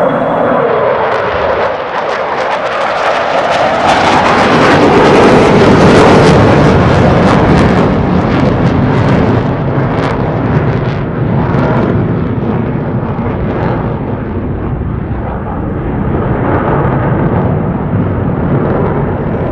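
Military fighter jet making a loud pass with its engine noise at full strength. A falling whine sounds in the first couple of seconds, the sound is loudest about six seconds in with a harsh crackle, and it then rumbles on steadily.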